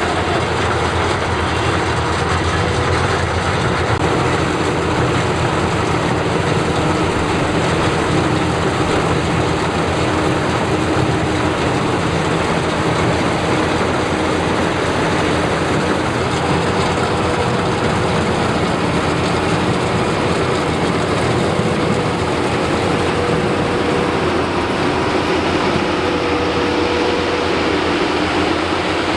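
Combine harvester running steadily while harvesting rice: a loud, unbroken mechanical noise of engine and machinery, with a faint steady hum held throughout.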